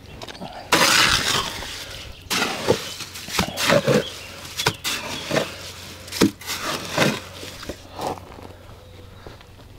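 A trowel scraping and scooping mortar for filling hollow concrete blocks. There is a long scrape about a second in, then a run of irregular short scrapes and knocks that dies down near the end.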